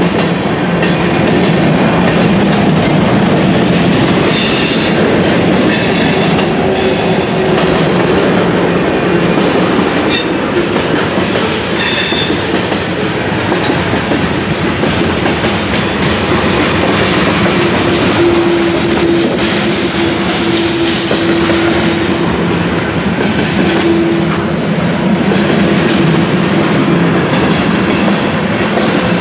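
CSX freight train cars rolling past close by: a steady rumble and clatter of wheels over the rails, with thin wheel tones ringing now and then.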